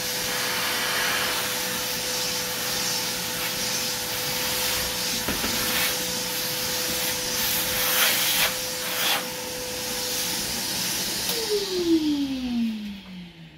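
Barber's vacuum running steadily with a hiss and a steady hum, its hose drawn over the client's head to suck up cut hair. About eleven seconds in it is switched off and the motor winds down with a falling whine.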